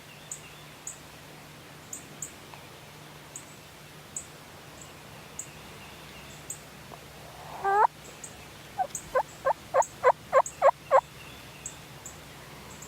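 Turkey calling: one loud call about seven and a half seconds in, then a quick series of about nine short yelping notes over two seconds, mostly getting louder. Faint high ticks recur throughout.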